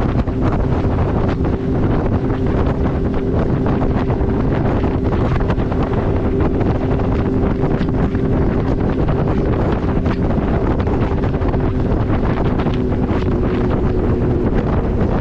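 Heavy wind buffeting on the microphone over a steady low hum that holds two even tones.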